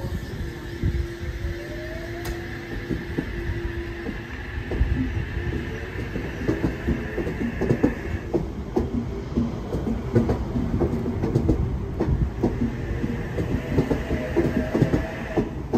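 Electric double-deck passenger train moving off along the platform. Its traction motors give a rising whine, and the wheels click over rail joints more and more often as it gathers speed.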